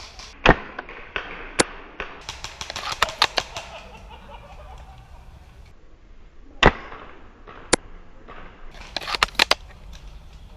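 Airsoft guns shooting. Two louder single shots come about half a second and six and a half seconds in, and quick runs of sharper cracks come about two to three seconds in and again near the end.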